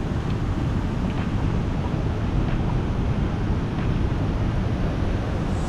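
Steady rushing of a mountain creek's water.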